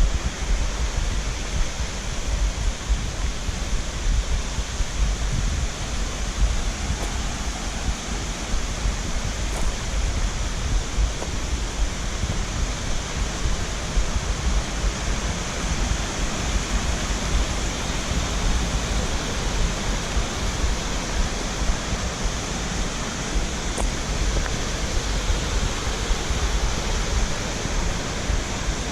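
Steady rushing of a mountain stream, with a deep rumble underneath.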